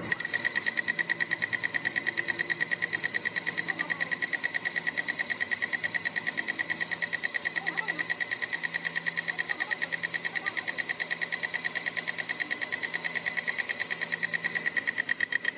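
Metal lathe spinning a truck driveshaft end while a center drill in the tailstock cuts into its face: a steady high-pitched squeal of drill on steel that pulses rapidly and evenly, several times a second.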